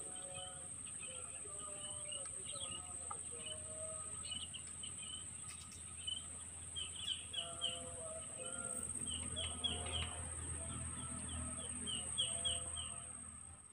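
Wild birds calling: short, high chirps in quick runs of three or four, with lower whistled notes between them. Under the calls runs a steady, high-pitched insect drone.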